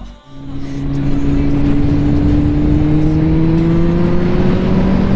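Kawasaki Z750 motorcycle's inline-four engine pulling hard in one gear under acceleration, its note rising slowly and steadily. It comes in just after a brief drop in sound at the start.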